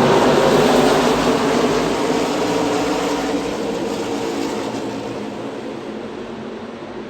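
Pack of stock cars racing past, their engine drone fading steadily as they pull away.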